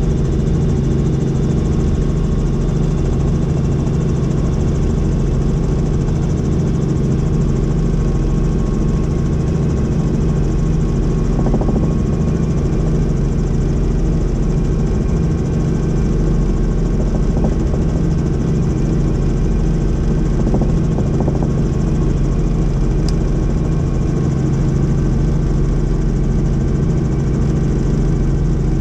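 Helicopter in flight heard from inside the cabin: a steady, unchanging drone of engine and rotor.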